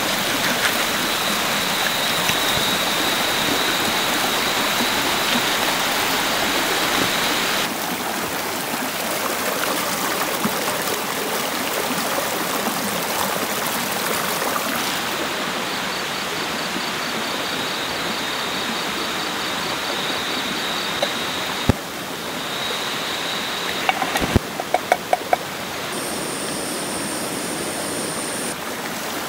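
Steady rush of a flowing stream or waterfall, with a thin high steady tone over parts of it. A quick run of sharp clicks comes near the end.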